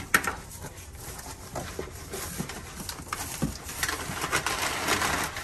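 Cardboard box flaps being folded open and the contents and packing handled. There is a sharp snap just after the start, scattered knocks, and crinkly rustling that builds over the second half.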